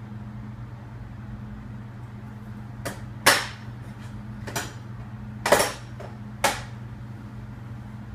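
A steady low hum, with five or six sharp knocks or clicks spaced unevenly through the middle, the loudest about three, five and a half, and six and a half seconds in.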